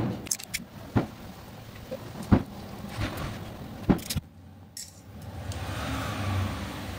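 Sharp clicks and taps of small hand tools, scissors and a blade, handled against a fishing rod's taped guide, about a second apart, over a steady low hum.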